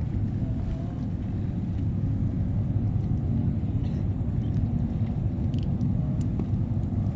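Steady low rumble of a passing ship's engine.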